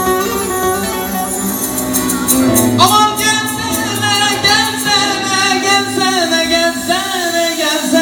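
Live Turkish folk uzun hava: the band holds a steady drone, and a long, ornamented vocal line with wavering pitch enters sharply about three seconds in.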